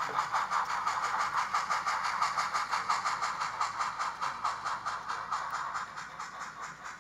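HOn3 model steam locomotives, a double-headed Blackstone K-27 and C-19, chuffing fast and evenly, about six hissing beats a second, as they haul a tank-car train uphill. The chuffing slowly fades toward the end as the train moves away.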